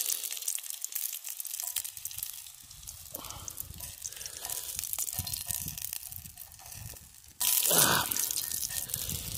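Hot oil sizzling and crackling as breaded fish fries in a pan, a fine steady spatter of pops. A little after seven seconds a sudden loud rush of noise comes in for about a second.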